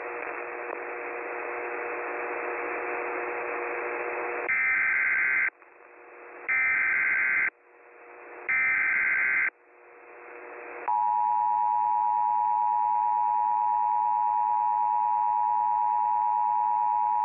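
Static hiss with faint steady hum tones, then three one-second bursts of warbling Emergency Alert System SAME header data, a second apart, that open a new alert. About eleven seconds in, the two-tone EAS attention signal (853 and 960 Hz together) begins and holds steady.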